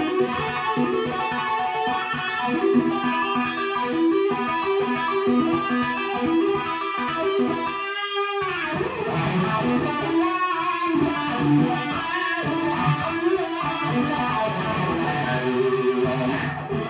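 Distorted electric guitar, a Gibson Les Paul through a Marshall stack, played through a Dunlop Cry Baby EVH wah pedal: fast riffs and lead lines with the wah swept, with a brief break in the playing about eight seconds in.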